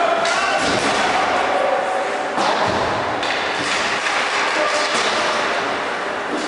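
Ice hockey play in an indoor rink: skates scraping the ice and sticks on the puck over a steady hum of arena noise, with a thud about two and a half seconds in.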